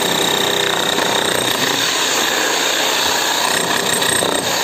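DCK 11 kg electric demolition hammer chiselling into concrete, running continuously with a steady rapid hammering.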